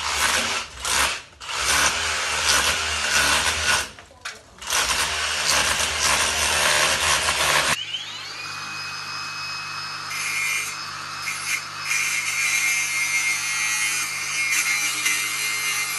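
Power tools at work: a harsh cutting noise that stops and starts in several bursts, then about halfway through a different tool's motor spins up to a steady high whine.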